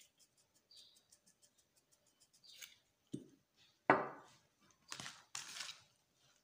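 Faint quick ticks as oregano is shaken from a small spice jar, then a sharp knock about four seconds in as the jar is set down on the table, followed by a metal spoon scraping as it stirs the rice mixture in a plastic container.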